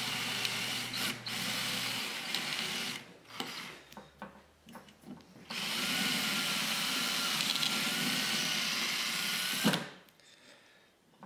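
Cordless drill drilling out the old rivet on a power window regulator's metal rail. It runs for about three seconds, stops for a couple of seconds, then runs again for about four seconds and stops near the end.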